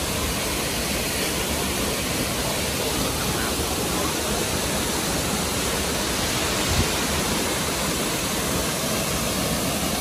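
Dambri Waterfall, a tall waterfall, pouring steadily into its plunge pool: a dense, even rush of falling water. A single brief low thump sounds about seven seconds in.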